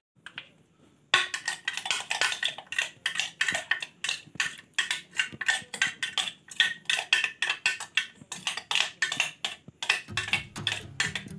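A metal spoon clinking rapidly against the inside of a stainless steel mug as something is stirred in it, about four strikes a second, starting about a second in. Music comes in near the end.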